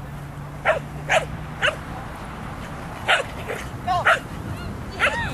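A dog barking: a string of about seven short, sharp barks at uneven intervals.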